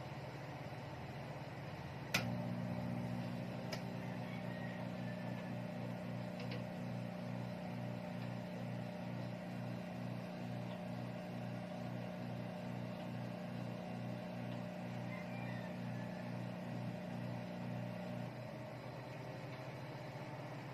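Microwave oven switching on with a click about two seconds in, then running with a steady low hum and a light regular pulsing. The hum thins a little near the end.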